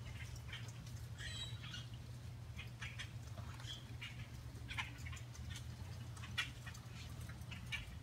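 Brown-headed cowbirds at a hanging seed feeder: scattered short chips and calls, with a few brief pitched notes, over a steady low hum.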